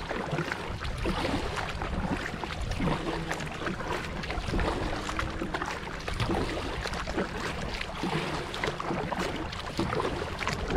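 Canoe paddle dipping and splashing in the water, with water trickling and a steady rush of wind on the microphone.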